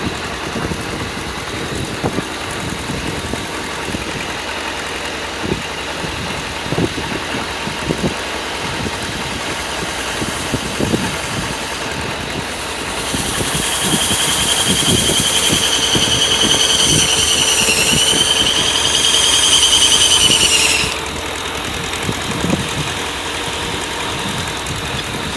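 Engine running steadily to drive an antique Corley sawmill's saw blade, with scattered knocks. About halfway through, a high whine sets in for some eight seconds, dips in pitch, then cuts off suddenly.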